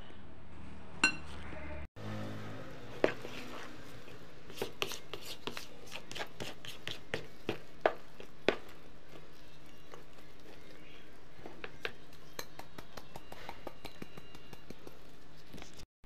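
Spatula folding flour into a butter-and-cheese cookie dough, knocking and scraping against the mixing bowls in a run of sharp clicks, thickest in the middle, with one ringing clink about a second in. A steady low hum runs underneath, and the sound cuts out briefly twice.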